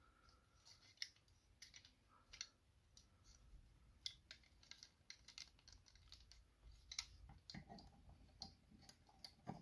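Faint, irregular clicks and taps of small plastic parts of a transforming robot figure being handled and tabbed together.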